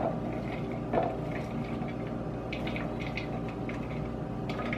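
Chopped celery, red onion and leek tipped and scraped by hand from a ceramic bowl into a plastic food-processor bowl: a soft knock about a second in, then light rustling ticks as pieces drop in, and another small click near the end.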